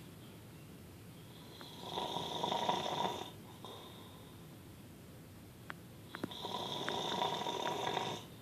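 A man snoring in his sleep: two long snores, the first about two seconds in and the second about six seconds in, each lasting roughly one and a half to two seconds, with quieter breathing between them. A few small clicks come just before the second snore.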